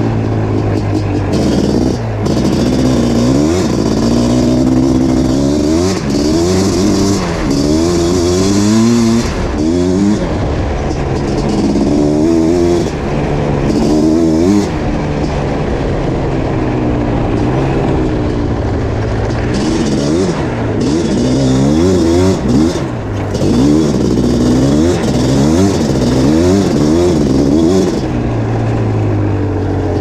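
Suzuki LT500R Quadzilla's 500cc two-stroke single-cylinder engine, fitted with an FMF Fatty pipe and Powercore silencer, revving up and down again and again in hard acceleration braaps. The pitch holds steady briefly at the start and again near the end.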